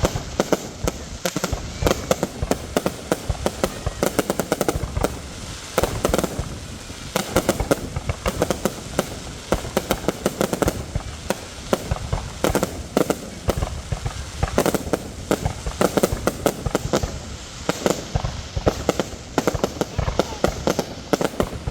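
Fireworks going off without pause: many sharp bangs and pops a second, overlapping in quick succession.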